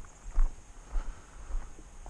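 Footsteps walking on a gravel path, three steps in the two seconds, each a low thud with a light crunch of gravel.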